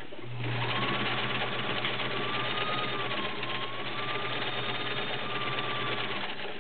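Kenmore Model 1601 sewing machine running at steady speed, stitching through six layers of denim: a motor hum with rapid, even needle clatter, starting about half a second in and stopping just before the end. It feeds the thick stack without bogging down.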